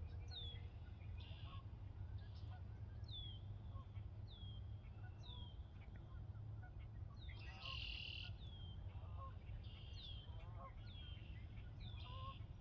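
Wild birds calling in a bog in early spring: a short falling whistle repeats about once a second, mixed with harsher buzzy calls, over a steady low rumble.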